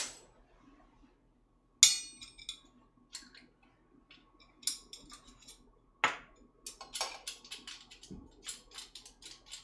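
Kitchen utensils and dishware clinking on a counter: a sharp, ringing clink about two seconds in, a few scattered knocks and clicks, then a run of quick light taps near the end.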